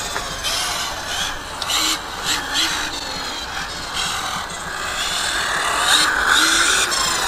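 Brushless electric motor of a ZD Racing 08425 1/8-scale RC buggy whining while driving, its pitch rising and falling with the throttle.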